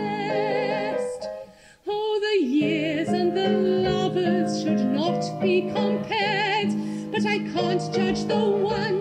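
A woman singing held notes with a wide vibrato in a classical, operetta style, over piano accompaniment. The music drops away briefly about a second and a half in, then the piano and voice come back.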